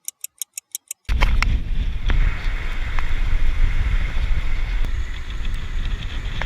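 A quick run of about eight sharp ticks in the first second, then a tour bus driving, a steady deep road rumble with wind noise on the microphone.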